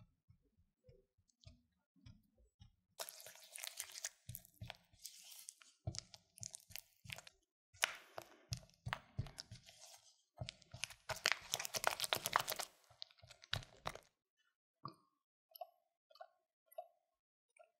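Silicone spatula mixing egg yolk into creamed butter and powdered sugar in a glass bowl: wet, sticky squelching and scraping against the glass in two long spells. The mixing stops a little after three quarters of the way through, and a few light taps follow.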